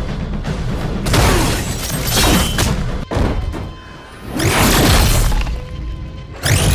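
Action-film fight soundtrack: a dramatic score under a series of heavy impacts and crashes, with the biggest hits about a second in, midway and near the end.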